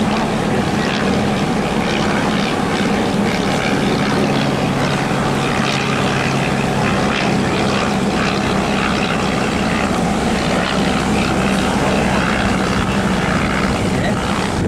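Steam trains running at speed side by side, heard from on board the train behind Garratt locomotive 6029: a loud, steady rush of running noise with a low steady drone.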